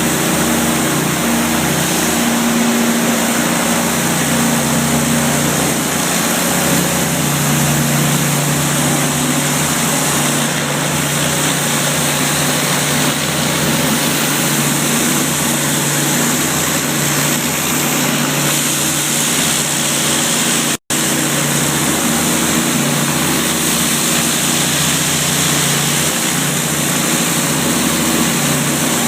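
Engine-driven pressure washer running steadily, a constant engine hum under the loud hiss of the water spray, with a split-second cut-out about two-thirds of the way through.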